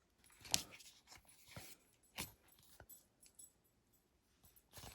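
Sticker sheets and packaging being handled: a few short rustles and light taps, with a longer rustle near the end.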